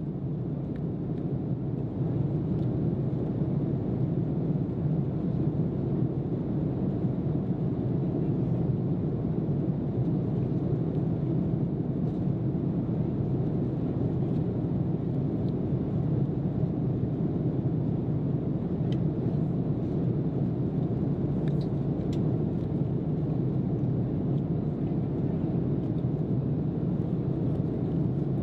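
Steady low cabin noise of an Airbus A330-300 airliner in cruise, the even rush of air and engines heard inside the cabin.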